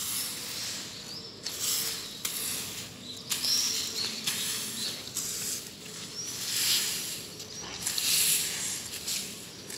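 Long-handled twig broom sweeping dry grass and leaves across paving stones, one hissing swish about every second.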